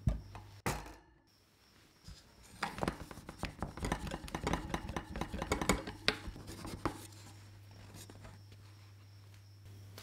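A thin spatula scraping around the inside wall of an aluminium cake pan, a quick run of scratchy strokes that loosens the baked chocolate cake from the pan. Two sharp knocks come in the first second, before the scraping.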